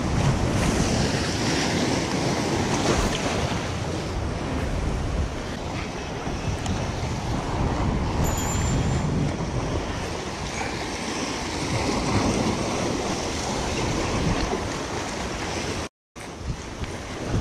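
Gulf surf washing against jetty rocks, with wind buffeting the microphone; the sound cuts out for a moment near the end.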